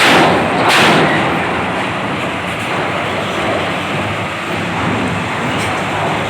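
Two loud bangs less than a second apart as a vehicle's wheels roll over the ferry's steel loading ramp, then steady rumbling of engines and wind.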